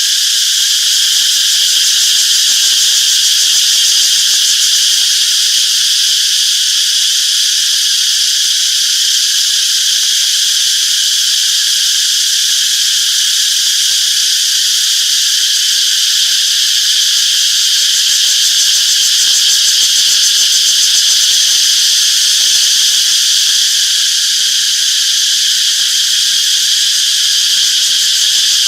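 A chorus of cicadas making a loud, steady, high buzz that holds without a break.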